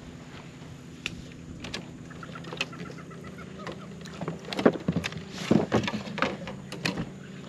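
Bow-mounted electric trolling motor humming steadily, with a cluster of sharp knocks and clicks between about four and seven seconds in.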